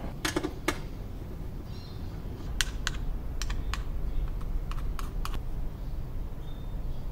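Scattered sharp clicks and light taps of hard plastic and metal parts being handled at a motorcycle's battery compartment under the seat, as the battery is lifted out, over a low steady rumble.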